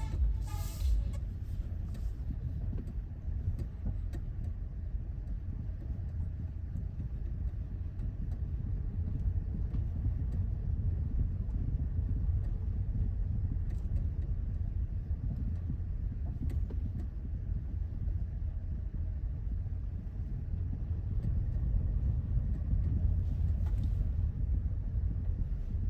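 Hyundai Elantra CN7 driving on a rough road: steady low road and tyre rumble, with a few faint knocks from the suspension now and then.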